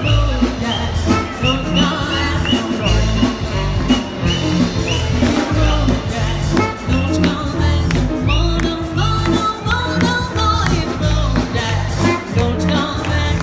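Live swing band playing, with saxophone over a steady bass and drum beat.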